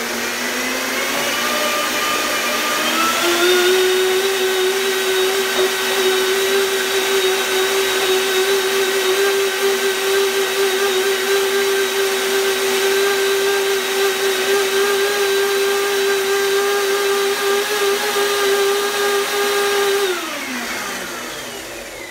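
Countertop blender blending sunflower seeds and water into a creamy sauce: the motor's whine rises in pitch over the first few seconds as it speeds up from a low start, holds steady, then winds down about twenty seconds in.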